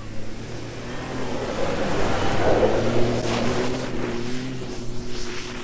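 Ford F-150 pickup's engine running steadily as the truck drives through soft beach sand. A rushing noise swells and fades through the middle.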